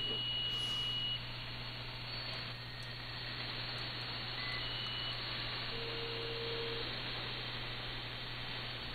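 Shortwave receiver static and hiss from an RTL-SDR software-defined radio being tuned across the HF bands, with brief whistling carrier tones. A high whistle cuts off about a second in, and a lower one sounds for about a second near the middle. A steady low hum runs underneath.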